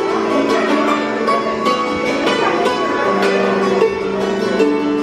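Hammered dulcimer being played, a tune of struck notes that ring on and overlap one another.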